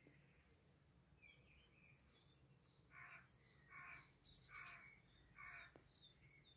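Faint birdsong: birds chirping, with a short call repeated about once a second from about three seconds in.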